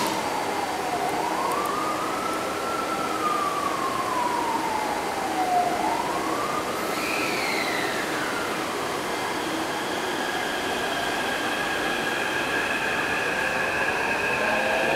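Taipei Metro C381 train's traction inverter whining as it pulls out: its pitch glides down and up a few times, drops again about seven seconds in, then settles into several steady high tones.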